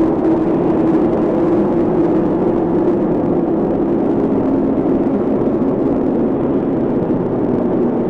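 A long stomach growl: a steady, unbroken low drone with several held tones.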